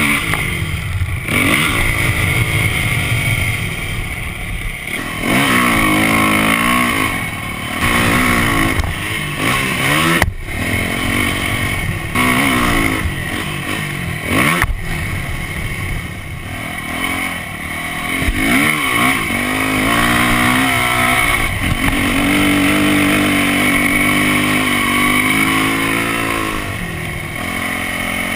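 Yamaha dirt bike engine revving up and down over and over as it is ridden through sand, the pitch rising and falling with the throttle. Two brief knocks come about ten and fourteen seconds in.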